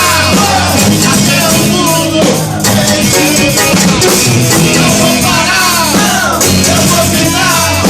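Loud live worship music from a church praise band, with singing voices over the band.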